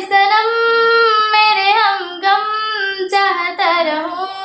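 A young woman singing a Hindi song unaccompanied, holding long notes with sliding pitch between them.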